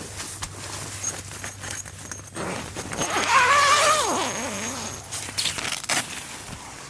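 Rustling and scattered clicks, with one wavering, pitched call about three seconds in that lasts about a second and a half and falls away at the end.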